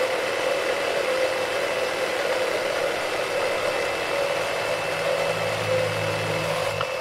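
Cordless reciprocating saws running steadily as their blades cut through a pressure-treated 4x6 timber. A lower hum joins about four and a half seconds in and stops just before the end.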